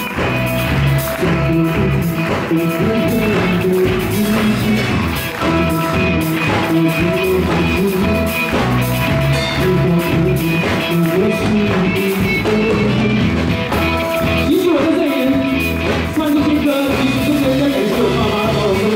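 Live rock band playing: drum kit, electric bass and electric guitars, with a man singing into a microphone over a steady beat.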